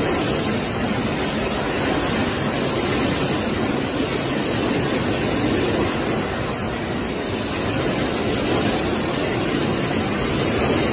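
Typhoon-force wind blowing hard through trees and debris, a steady loud rushing noise that does not let up.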